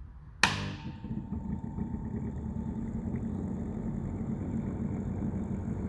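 Nuaire Flatmaster 2000 ventilation fan switched on with a click about half a second in, then spinning up and running with a deep warbling rattle. The rattle comes from the fan wobbling up and down more than it should.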